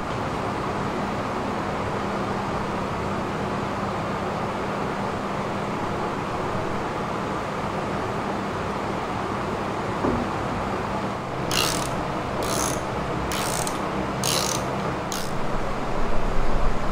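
Hand ratchet wrench clicking in five short runs about a second apart, tightening a fuel tank's mounting-strap bolt, over a steady background hum.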